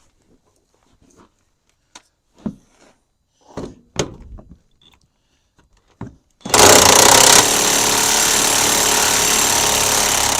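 A few light knocks and clicks of tools on metal, then about six and a half seconds in a power impact wrench runs hard and steadily for about four seconds, loudest in its first second, backing out a bolt.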